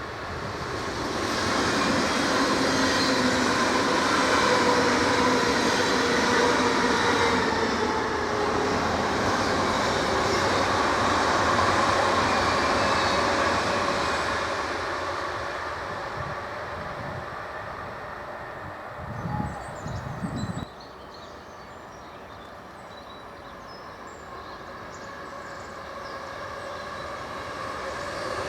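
Electric S-Bahn multiple-unit train passing: steady rail running noise with a held motor whine, swelling in the first two seconds and fading slowly from the middle on. There are a few low thumps about two-thirds of the way through, and the sound builds again near the end as a train approaches.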